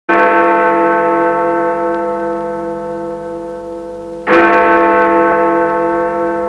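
A deep bell struck twice, about four seconds apart, each stroke ringing on and slowly fading.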